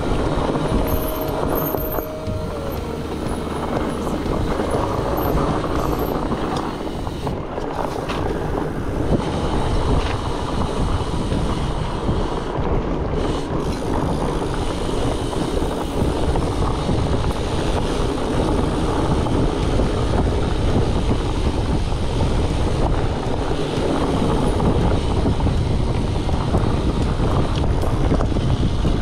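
Continuous riding noise from a mountain bike on a trail: wind rushing over the microphone mixed with the steady rattle and rumble of tyres and frame over rough ground.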